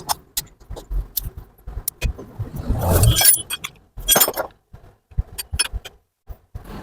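A string of sharp metallic clinks and rattles from small metal engine parts or tools being handled, with two short rattling bursts, one about three seconds in and one about four seconds in.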